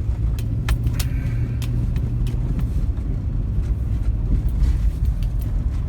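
Steady low road and engine rumble of a car being driven, heard from inside, with a few scattered light ticks and knocks.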